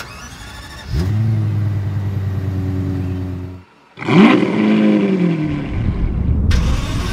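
A Lexus LFA's V10 starts about a second in and settles into a steady idle. After a brief silent cut, a Lamborghini Aventador roadster's V12 starts with a loud rev flare that rises and then falls back toward idle.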